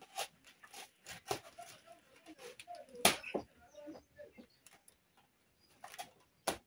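Machete chopping at the stem of a banana bunch: irregular sharp strikes, the loudest about three seconds in.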